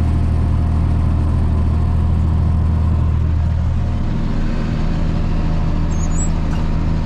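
Farm tractor engine running steadily while pulling a bush hog rotary mower through weeds; its low note shifts about four seconds in.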